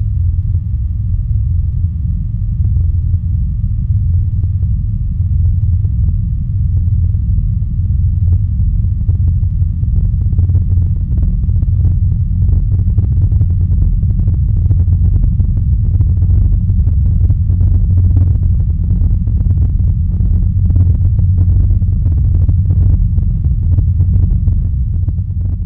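Deep, steady low drone with a few faint sustained tones above it. From about ten seconds in, scattered crackling clicks join it and grow denser.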